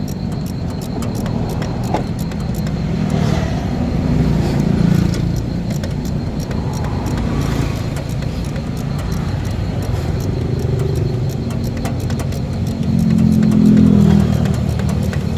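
Car engine running steadily, rising in level twice: about four seconds in and again near the end.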